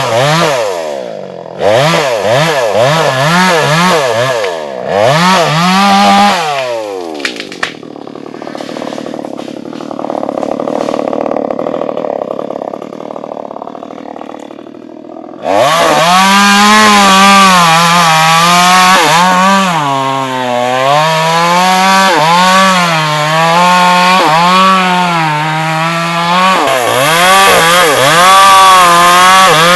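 Stihl chainsaw blipped up and down in quick revs, then dropping back quieter for several seconds. About halfway through it runs loud at high revs, its pitch sagging and recovering again and again as the chain cuts into wood.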